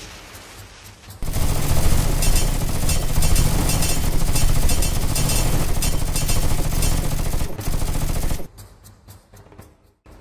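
Automatic gunfire sound effect: rapid, dense shots that grow loud about a second in and drop away near the end.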